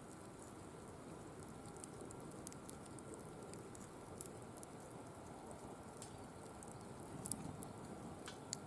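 Firewood burning in a wire-mesh fire pit: a faint steady rush of flame with scattered small crackles and pops, a couple of sharper pops near the end.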